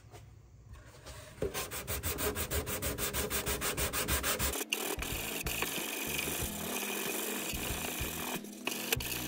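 Hand sanding block rubbed back and forth over a plywood plate set in a balsa fuselage, in quick regular strokes of about four a second. About halfway through it changes to a smoother, more continuous rasp.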